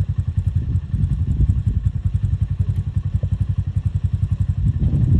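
Engine idling close by: a steady, rapid low putter.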